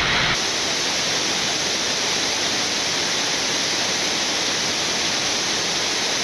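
Steady rushing airflow and air-conditioning noise on a Boeing 787 flight deck in cruise. A low rumble drops away just after the start, leaving an even hiss.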